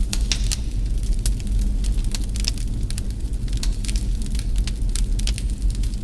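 Wood fire in a fireplace crackling, with irregular sharp pops several times a second over a steady low rumble.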